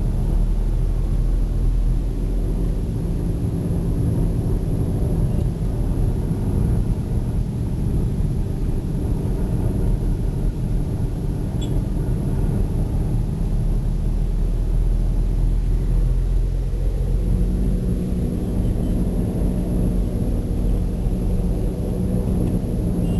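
Steady low drone of a car's engine and tyres while driving along a city road, with the engine note changing about seventeen seconds in.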